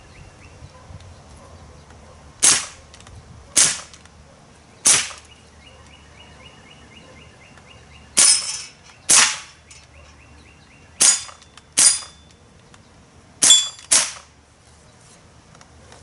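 Daisy/Winchester M14 CO2-powered semi-automatic air rifle firing nine sharp shots. The first three come about a second apart, then three quick pairs follow.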